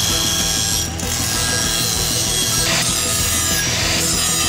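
Angle grinder with a flap disc grinding the steel of a leaf-spring machete blade: a steady grinding run with the motor's whine, over background music.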